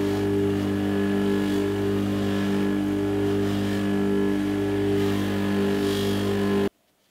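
Bench grinder running with a non-woven abrasive wheel, a steady motor hum under the hiss of a steel chuck jaw being buffed against the wheel to scrub off the dark citric-acid residue. The sound cuts off suddenly near the end.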